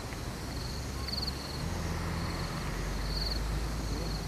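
Insects chirping in short, rapidly pulsed high bursts that repeat every second or so, over a low steady rumble.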